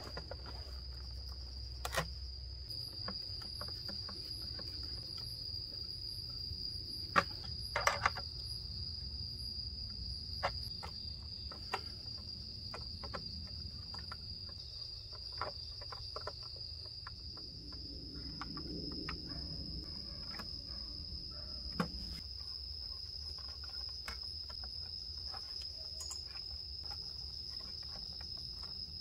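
Scattered light clicks and rattles of wires, terminals and relays being handled in a plastic electrical control box, sharpest in a short cluster about seven to eight seconds in. Under them runs a steady high-pitched trill.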